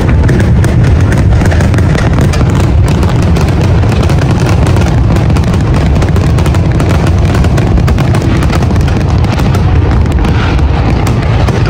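Dense, continuous barrage of aerial fireworks: booms and crackling bursts overlap with no pause, heavy in the low end.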